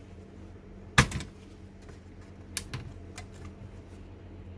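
Plastic clicks and snaps as the locking clips holding an electronic typewriter's key panel are released and the panel is worked free of its plastic housing. There is one sharp snap about a second in, then a few lighter clicks a little later.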